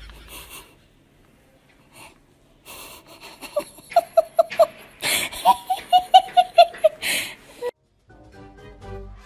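High-pitched wheezy laughter in two quick runs of short "ha" pulses, about five a second, with breathy gasps around them. Music begins near the end.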